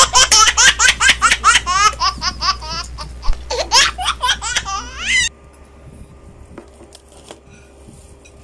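High-pitched laughter in quick repeated peals, cutting off abruptly about five seconds in; after it only faint clicks remain.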